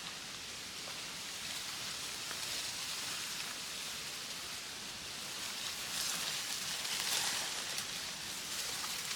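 Steady rain falling, growing a little heavier about six seconds in.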